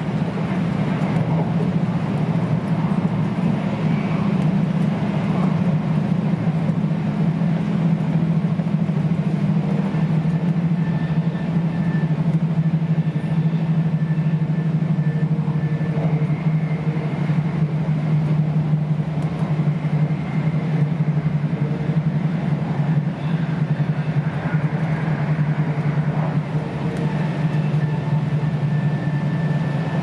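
Steady low rumble of an E2 series Shinkansen running at speed, heard inside the passenger car, with faint whining tones on top in the second half.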